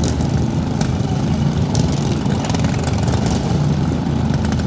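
Riding lawn mower engines running steadily in a derby, a loud continuous engine hum with a few faint clicks.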